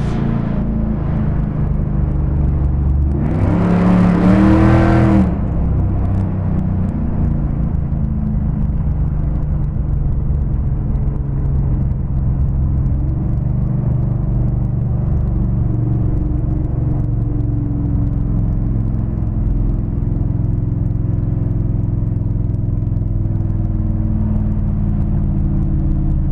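1955 Chevrolet's 500-cubic-inch V8 running with a steady low rumble. A brief rev rises in pitch about three seconds in, then it settles back.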